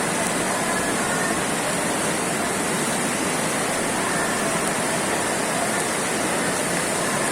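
Steady rushing of flowing floodwater: a loud, even wash of noise that does not let up.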